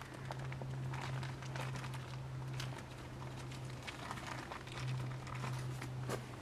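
Tarp fabric rustling and crinkling in scattered bursts as it is handled and pulled into place, over a steady low hum.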